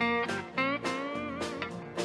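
Instrumental break in a country-gospel song: guitar notes plucked over a bass line, then a lead guitar line that slides and bends in pitch for about a second.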